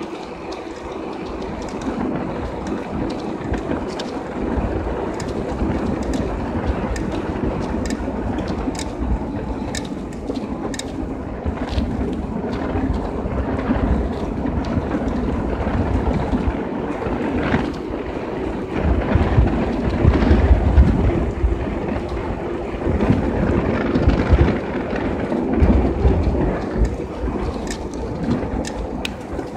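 Wind buffeting the microphone and the hiss of bicycle tyres rolling on wet asphalt while riding, with stronger gusts of rumble in the second half and scattered light ticks.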